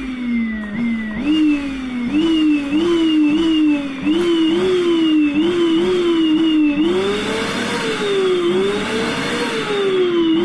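A 1700-watt vacuum cleaner motor whining and revving like a racing engine: its pitch jumps up and sinks back over and over, like an engine shifting through gears. About two-thirds of the way in it swells up and down twice more slowly, with more rushing air, before the quick rises return.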